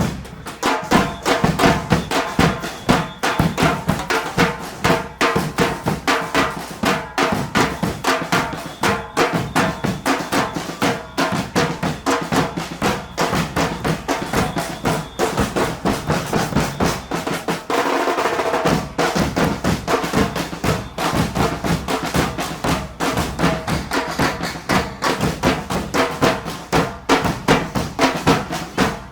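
Carnival murga percussion band playing a rapid, steady beat on bass drums and snare drums. Near the middle the deep drum strikes drop out for a moment before the full beat returns.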